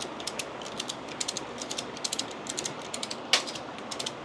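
Ratchet tie-down strap being cranked tight, its pawl clicking in quick runs, with one sharper click about three seconds in.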